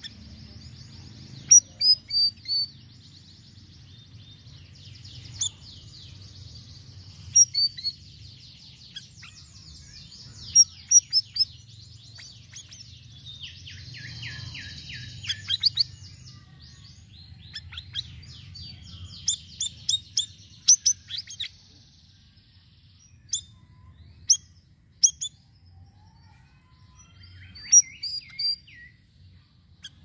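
Caged siri-siri bird singing a varied, lively song: sharp high chirps and quick rattling trills in short bursts, with a buzzy trill about halfway through. A faint low hum runs underneath.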